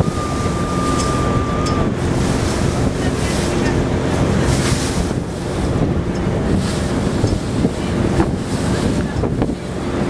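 Wind buffeting the microphone on the deck of a car ferry underway, over water splashing against the hull and the low steady drone of the ferry's engine. A thin steady tone sounds for about the first two seconds.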